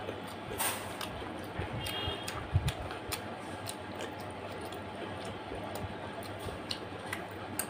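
Close-up eating sounds: wet mouth clicks and smacks from a person chewing chicken feet and gizzard curry with rice eaten by hand. There is a low thump about two and a half seconds in.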